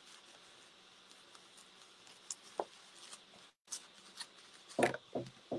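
Faint rustling and light crinkling of a paper template and fabric being worked apart by fingers, with a few louder rustles about five seconds in.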